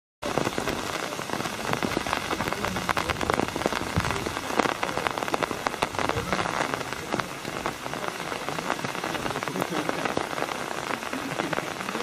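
Steady rain falling, with many separate drops striking close by as sharp ticks.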